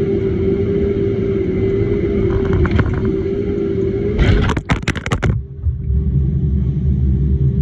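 Heavy machine's engine and hydraulics running steadily with a strong whine. A brief clatter of sharp knocks about four seconds in, after which it runs on slightly lower and quieter.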